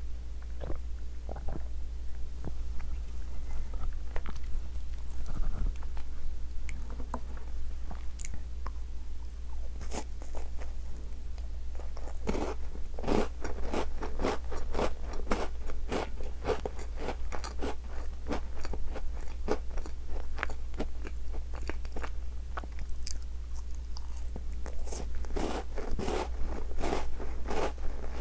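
Close-up biting and chewing of chocolate-coated Tim Tam biscuits. The crisp biscuit crunches sparsely at first, then densely from about twelve seconds in and again near the end, over a steady low hum.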